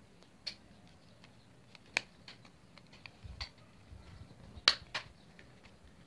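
Plastic case of a pocket calculator being handled and snapped back together: a handful of sharp clicks, the loudest two close together near the end.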